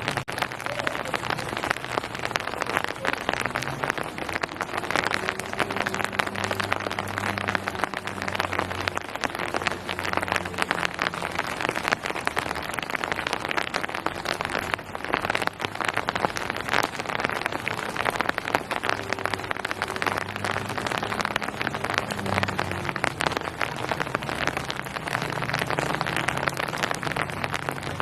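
Steady rain falling on hard surfaces, a dense, even patter of countless drops. Under it runs a low hum that swells and fades every few seconds.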